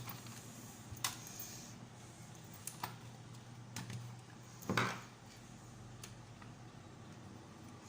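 Scattered clicks and knocks of small toy parts and a hand tool being handled during reassembly, with one louder clatter about halfway through, over a faint steady low hum.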